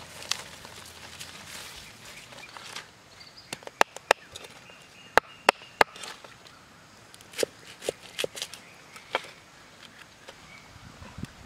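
Leaves and grass rustling as plants are handled, then a knife chopping stalks on a wooden cutting board: about ten sharp knocks in uneven clusters, from about four seconds in until about nine seconds in.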